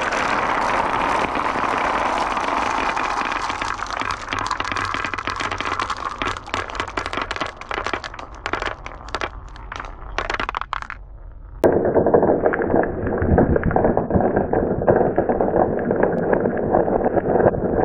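Marbles rolling along wooden tracks: a continuous rolling rush with many sharp clicks and knocks, which thin out to scattered clicks before stopping. About two-thirds of the way through it cuts suddenly to a louder, duller rolling rumble.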